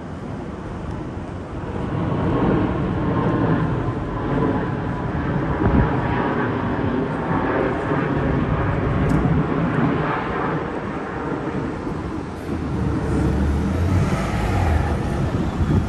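Engine noise from a passing vehicle, swelling up over about two seconds and staying loud, with a deeper rumble joining for a couple of seconds near the end.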